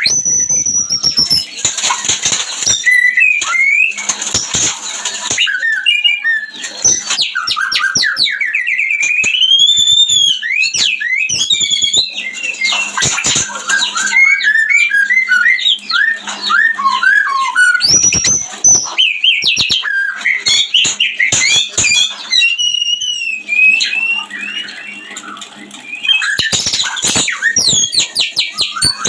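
White-rumped shama (murai batu) song during mating: a varied run of loud whistles, rising and falling glides and fast trills, mixed with sharp clicks, with a short lull about 25 seconds in.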